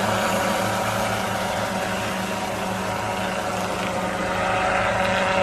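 Remote-controlled crop-spraying helicopter running steadily, a constant hum with a higher-pitched whine from its motor and rotor.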